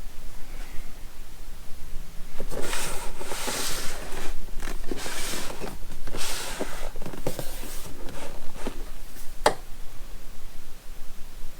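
Repeated bursts of rustling and scraping with several sharp knocks, as items are handled and pulled out of a cardboard box; a single sharp knock comes near the end.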